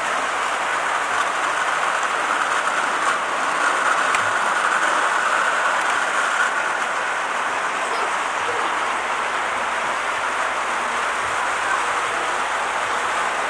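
Toy electric trains running on a model railroad layout, including a self-propelled Burro crane: a steady whirring rattle of small motors and metal wheels on the track, with no breaks.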